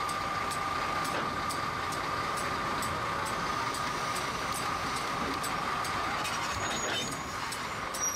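General Electric diesel-electric switch engine running as it pulls the train slowly up to a siding switch, with a steady whine and an even ticking about twice a second over the engine noise; the whine fades about six seconds in.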